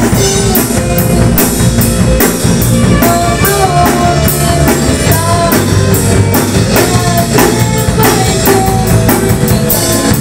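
A rock band playing live: a drum kit beat with electric bass and guitar underneath, and a violin carrying a sustained melody over the top.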